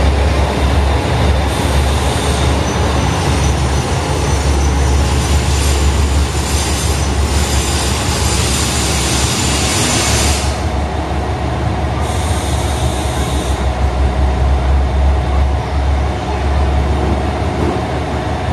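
KiHa 185 diesel railcar pulling in along the platform with a low rumble and a high squealing hiss from the wheels and brakes, which stops about ten seconds in as the train comes to a halt. Its diesel engine then idles with a steady hum, and a short hiss follows a couple of seconds after the stop.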